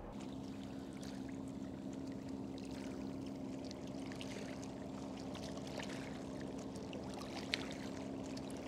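Water lapping and trickling at a weedy, rocky shoreline, with a steady low hum underneath and a few faint ticks.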